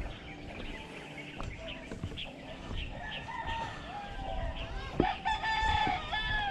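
A rooster crowing near the end, one long call, just after a sharp knock about five seconds in. Short high chirps sound earlier.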